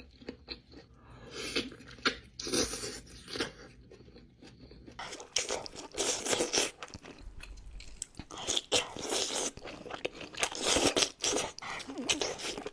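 Close-miked eating sounds from a seafood boil: chewing and crunching in irregular bursts, brighter and denser from about five seconds in.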